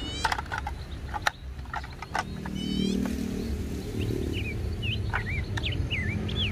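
Hard plastic toy parts clicking and snapping as the skip-loader arm and bin are fitted to a toy garbage truck's chassis, with several sharp clicks in the first two seconds. Birds chirp in the background, with short high calls that rise and fall, most of them in the second half.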